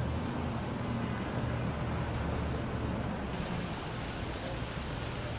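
Traffic on a rain-soaked city street: a steady hiss of rain and wet road over a low hum of vehicles.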